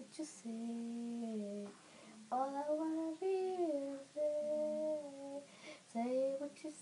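A girl humming a slow tune without words, in a few long held notes with short breaks between, one note sliding up and back down.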